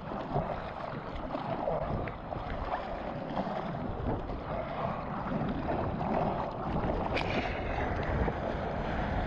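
Water splashing and rushing against a surfboard as a surfer paddles with his hands, with wind buffeting a microphone mounted on the board. A brief sharp tap sounds about seven seconds in.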